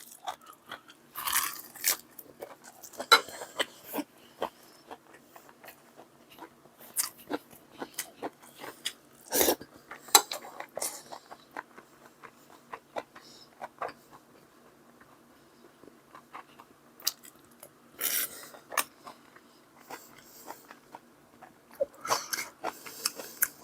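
A person chewing and biting crunchy food close to the microphone: irregular crunches and mouth clicks, with a few louder bites.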